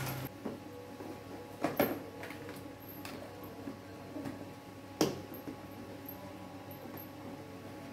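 Nuggets tipped from a plastic bag into a clear plastic storage container, then its plastic lid fitted and pressed shut, giving a few sharp clicks and knocks, the loudest about five seconds in.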